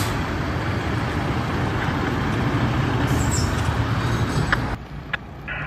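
The diesel engine of a 2005 American LaFrance Eagle tower ladder fire truck, running with a steady low rumble as the rig pulls out of the station bay. The sound cuts off abruptly about five seconds in.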